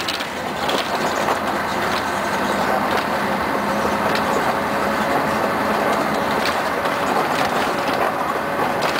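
Steady drone of a 1992 Scania CN113ALB articulated city bus under way, heard from inside the cabin: the diesel engine's hum mixed with road noise, with a few light rattles and knocks from the body.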